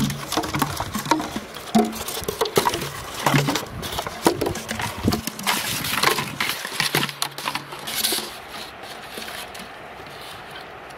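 Close handling noise of hands working raw chicken heads and plastic drink bottles tied with rope: a busy run of crinkles, taps and rustles that thins out about eight seconds in.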